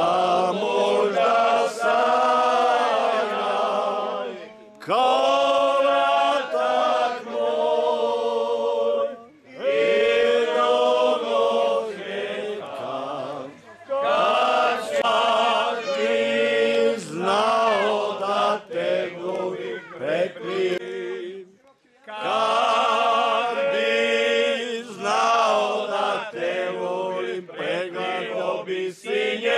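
A group of men singing a folk song together, in long held phrases broken by short pauses.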